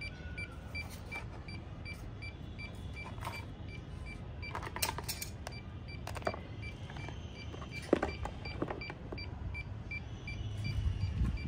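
Plastic clicks and knocks of a drone remote controller being handled and lifted out of its zippered case, the sharpest click about eight seconds in, over a steady low rumble. A faint high pip repeats about three times a second.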